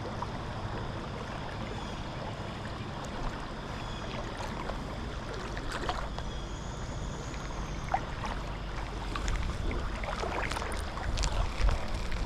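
A boat's motor runs with a steady low hum over water noise, with scattered short clicks and knocks that come more often near the end.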